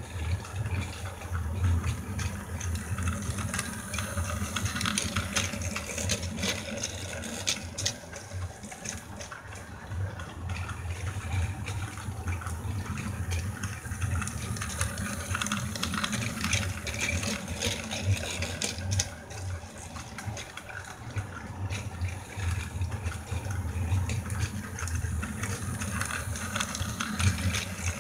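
Battery-powered toy train's small motor whirring and its wheels rattling along plastic track as it pulls freight cars loaded with coffee cans, swelling and fading as the train circles past.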